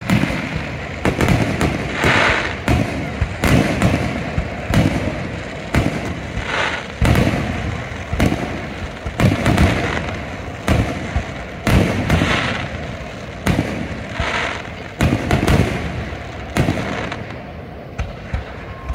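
Aerial fireworks display: shells bursting in quick succession, a boom every half second to a second, several followed by a brief crackle.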